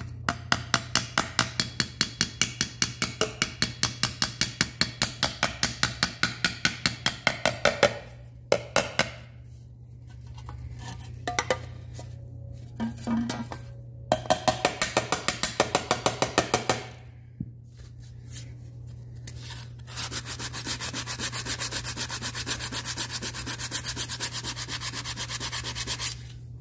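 Small hammer tapping quickly on a thin aluminum seat molding, about five light blows a second in two long runs, working out a crease left in the metal. From about 20 seconds in, a steady rubbing of hand sanding on the molding.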